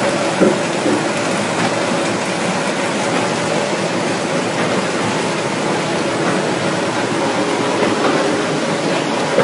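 Rotary veneer-peeling lathe running steadily as it turns a log against the knife and peels off a continuous sheet of veneer. The chain drive, rollers and motor make a dense mechanical clatter with a faint steady hum, and there is a brief knock about half a second in.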